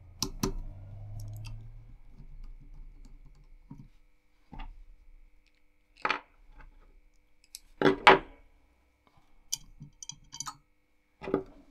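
Scattered light clicks and knocks, about a dozen, the loudest a quick double knock about eight seconds in: small hardware being handled while a CPU cooler's backplate and mounting screws are fitted to a motherboard.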